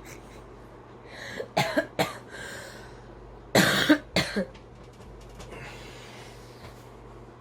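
A person coughing: three short coughs about a second and a half in, then a louder cough near the middle followed by two smaller ones.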